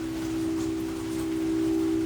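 Singing bowl ringing one steady, held tone, with rain pattering faintly behind it.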